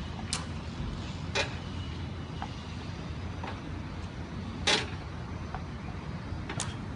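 Tennis ball struck with a racket four times at uneven intervals, sharp pops, with fainter taps in between, over a steady low background rumble.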